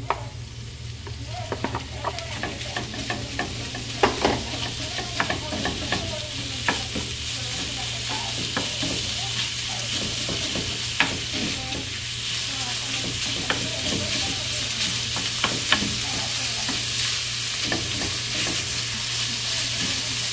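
Ground beef frying in a pan with peppers, garlic and onion: a steady sizzle that grows louder over the first few seconds. A cooking utensil stirring it clicks and scrapes against the pan at irregular moments.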